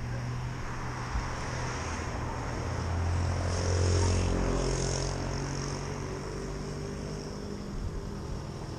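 Road traffic: a steady low engine drone, with one vehicle passing close and growing loudest about four seconds in before fading.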